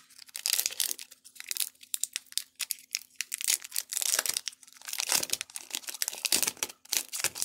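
Foil wrapper of a Pokémon trading-card booster pack crinkling and crackling irregularly as it is picked up and handled.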